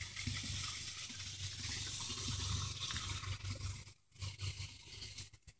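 Small creek's running water, a steady hiss, with a low rumble underneath; the sound drops out briefly about four seconds in.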